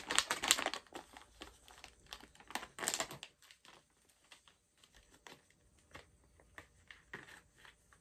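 Plastic jerky pouch crinkling and crackling as it is shaken and handled to be opened, with the loudest rustles in the first second and again about three seconds in, then softer, sparser crinkles.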